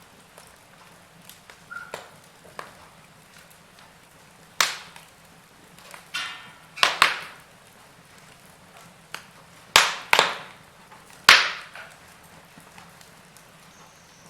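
Wood fire burning in a fireplace, crackling: a low hiss broken by scattered sharp pops, with a run of loud snaps in the middle.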